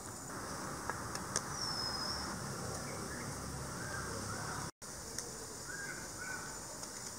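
Outdoor garden ambience: birds call several times in short chirps, one a high whistle about one and a half seconds in, over a steady background hiss. The sound drops out completely for an instant about two-thirds of the way through.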